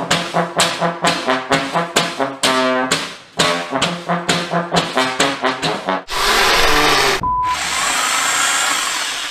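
Trombone music playing short, rhythmic stabbed notes, about three a second. About six seconds in it gives way to a loud, even hiss with a brief steady beep in the middle, which fades out just after the end.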